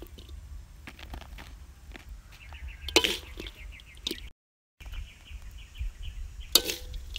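Metal spatula scraping and clacking against an aluminium wok as stir-fried frogs are scooped out, with two sharper clacks about three seconds in and near the end. A faint rapid chirping sounds in the background, and the sound cuts out for a moment just after four seconds.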